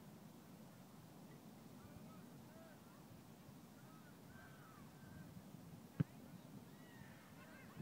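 A single sharp thud of a boot kicking an Australian rules football about six seconds in, over wind noise and faint bird calls.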